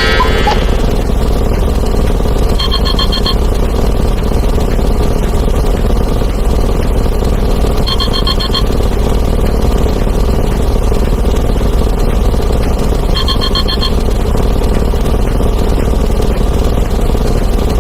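A dense, steady wall of many layered sound effects, explosions and breaking glass fired so fast that they merge into one continuous rumble. A short pulsing electronic ring cuts through it about every five seconds.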